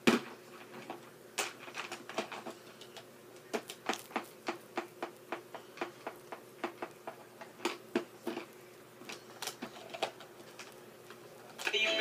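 A string of irregular light clicks and taps, a couple a second, over a faint steady hum; music starts just before the end.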